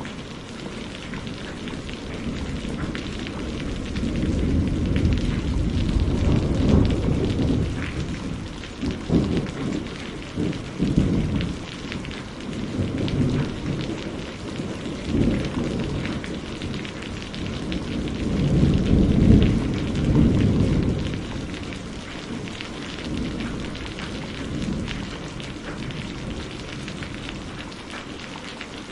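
Heavy rain falling steadily, with a long rolling thunder rumble that builds from about four seconds in, peaks a little past the middle and fades away near the end.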